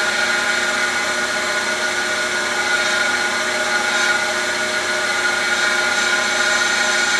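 Cylindrical grinder's wheel grinding a rotating shaft: a steady motor whine with a constant gritty hiss of the wheel on the work, unchanging throughout.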